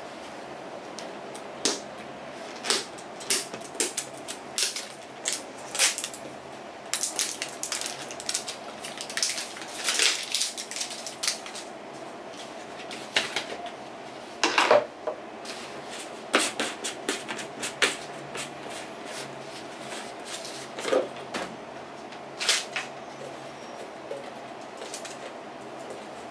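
Plastic handling noises from a protein-powder tub and its scoop and shaker bottle: a long run of irregular clicks, taps and knocks as the tub is opened and the plastic scoop and shaker are handled, with a louder clatter about fifteen seconds in.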